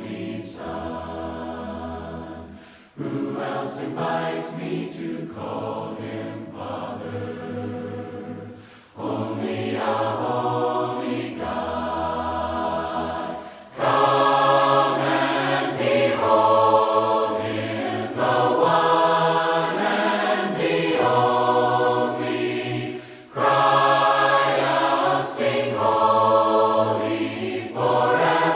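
Congregational choir singing a hymn a cappella in several-part harmony, in held phrases a few seconds long with short breaks between them, louder from about 14 seconds in.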